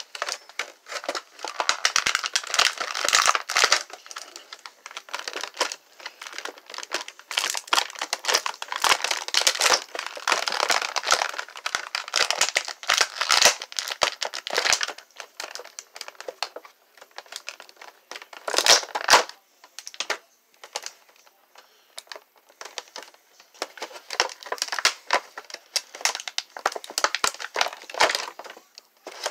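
Clear plastic action-figure packaging crinkling and crackling as it is handled and pulled apart by hand. The noise comes and goes irregularly, with a few quieter stretches.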